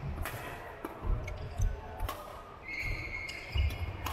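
Badminton rally: several sharp racket hits on the shuttlecock, with players' shoes thudding on the wooden court floor. A held high squeak sounds in the last second or so.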